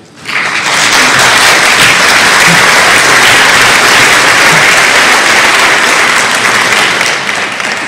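Large audience applauding in a hall. The clapping swells in within the first half second, holds steady, and starts to die down near the end.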